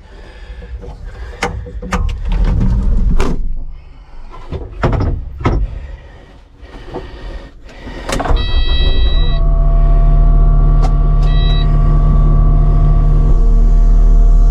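Several knocks and clunks, then about eight seconds in the diesel engine of a Kubota SVL75-2 compact track loader starts with a few electronic warning beeps and settles into a loud, steady idle. A second brief beep comes about three seconds after it starts.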